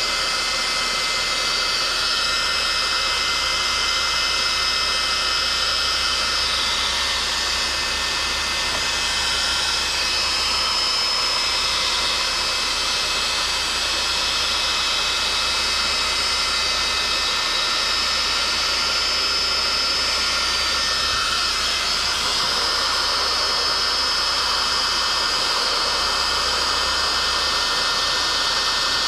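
Electric heat gun running steadily: an even rush of air with a faint whine from its fan, blowing hot air over faded plastic door trim.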